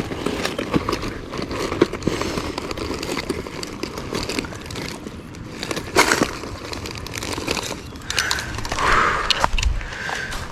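Irregular crackling, rustling and clicking with an occasional sharper knock, from close handling and movement.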